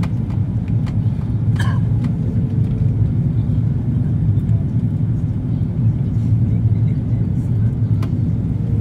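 Steady low rumble of a jet airliner's engines and airflow heard inside the passenger cabin during descent on the landing approach, with a few faint clicks.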